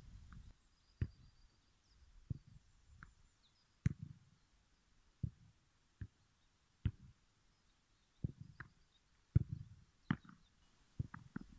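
A football being kicked, headed and caught back and forth: about a dozen short, sharp thuds at irregular intervals, some in quick pairs.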